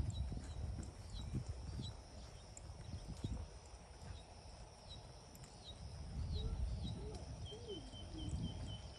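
Horse trotting on a soft dirt arena, its hoofbeats coming as dull, muffled thuds, with faint bird chirps above.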